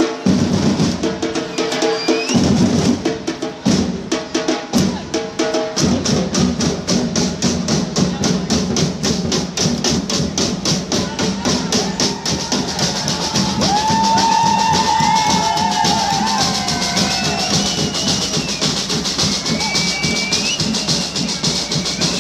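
Drums played in a fast, steady beat amid a crowd, with held tones over the first few seconds and voices shouting over the drumming later on.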